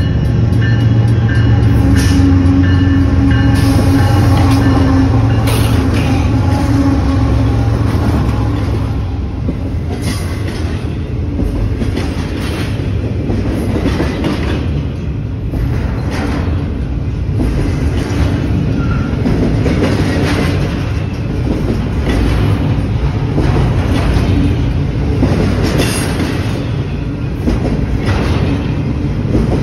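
Diesel freight locomotives passing close by with their engines running, loudest in the first several seconds. After that, a double-stack intermodal train of container well cars rolls past with a steady rumble and repeated clacks of the wheels on the rails.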